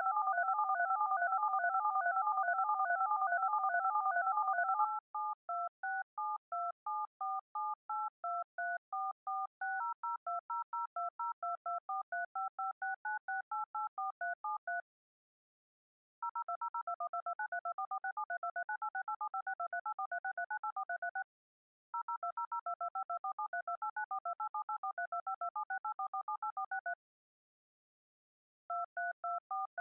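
Electronic emergency-alert alarm tones from a mock Emergency Alert System alarm. It opens with about five seconds of loud, fast pulsing on two pitches together, then turns to a quieter string of short beeps hopping between several pitches at about three a second, broken by three brief pauses.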